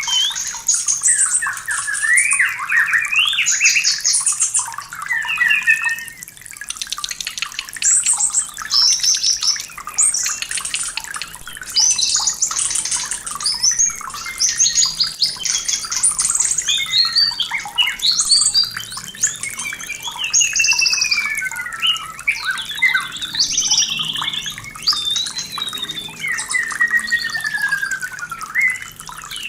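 White-rumped shama in breeding condition singing a long, varied song of rising and falling whistles, rapid trills and slurred notes, the kind of recording played as a lure to get other shamas singing.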